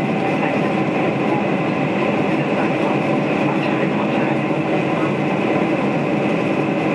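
Steady cabin noise inside a Boeing 747-400 climbing through cloud: the even roar of its four turbofan engines and rushing airflow, with a faint steady hum underneath.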